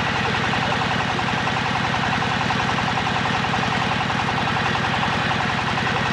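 The hydraulic drilling rig's engine running steadily with a rapid, even beat, powering the rig.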